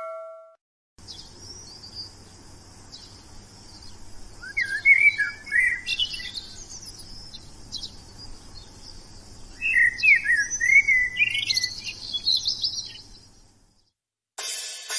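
Birds chirping and singing, with two louder warbling phrases in the middle. A ringing ding fades out at the very start, and a drum beat starts just before the end.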